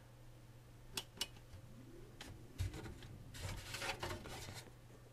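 Quiet handling sounds on a desktop PC case: two light clicks about a second in, a dull knock, then a second or so of rubbing as a hand works at the power supply mounted at the top of the case.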